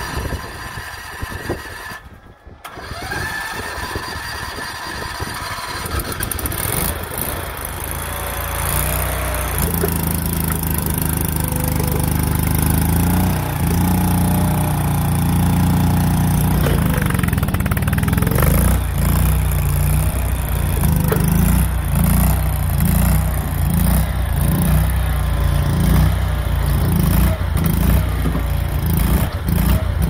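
Small engine of a tracked mini stand-on skid steer running. About a third of the way in it turns louder and deeper, and from about the middle on it throbs, swelling roughly once a second, while the loader arms raise and lower the bucket on hydraulics.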